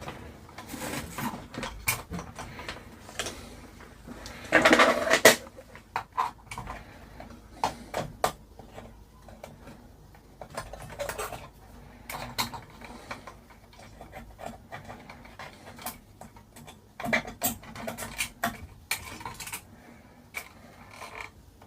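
Hands working on an amplifier at the bench: scattered clicks, taps and rustles of tools and parts being handled while a component is taken off, with a louder, longer clatter about five seconds in.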